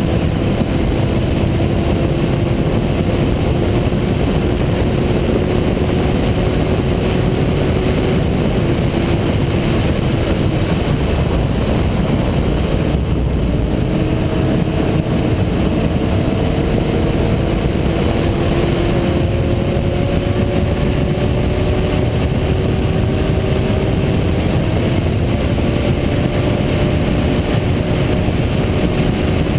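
Kawasaki Z750 motorcycle engine running loudly and steadily, its pitch climbing slowly, then dropping suddenly about 13 seconds in and climbing again.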